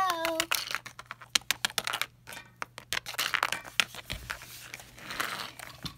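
Small plastic toy figurines being tapped and clicked across a wooden tabletop by hand, a quick irregular run of light clicks.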